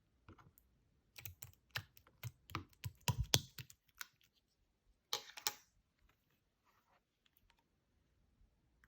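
Clear slime being pressed and poked by hand, giving a quick run of sharp clicks and pops, then a short crackly squish about five seconds in.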